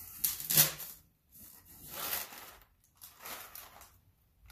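Crumpled brown packing paper rustling and crinkling as it is pulled out of a cardboard box, in three bursts with short pauses between.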